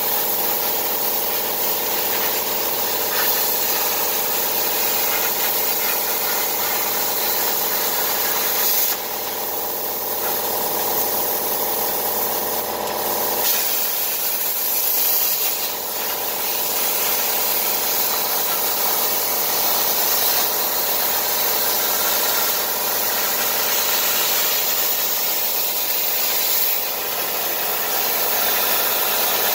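Everlast Power Plasma 60 plasma cutter's arc hissing steadily as the CNC machine torch cuts sheet metal, over a steady hum that is likely the downdraft table's dust-collector blower. The hiss dips briefly a few times.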